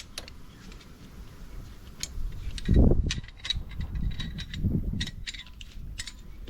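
Metal clicks and clinks of a brake-line flare tool being handled and set up to crimp a copper battery-cable lug, with a dull thump a little under three seconds in.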